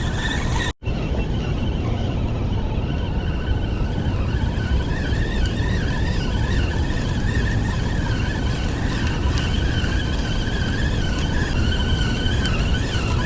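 Steady low rumble of wind and distant engine noise, with a faint wavering high whine over it. The sound cuts out completely for a moment about a second in.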